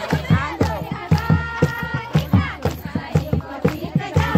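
Folk music for dancing: a drum keeps a fast, even beat of about four strokes a second while women's voices sing along.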